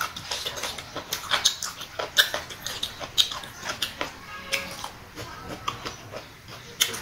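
Close-miked chewing of crunchy boiled pork dồi trường and raw herbs: irregular wet crunches and mouth clicks, several a second.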